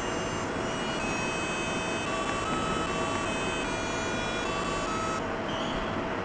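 Electronic alarm melody from a desk alarm clock: a run of beeping tones stepping up and down in pitch, stopping about five seconds in, over a steady hiss.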